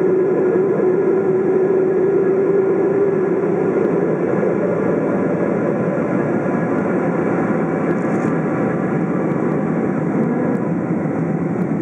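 Steady jet engine and airflow noise inside the cabin of a KLM Boeing 777-200 climbing after takeoff. Its GE90 engines are heard over the wing. A steady hum in the noise fades out about three seconds in.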